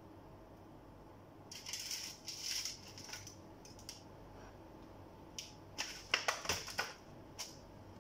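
Crushed cornflakes crunching and crackling as a piece of marinated chicken is pressed and rolled in them, in two spells of crisp bursts with a few single crackles between.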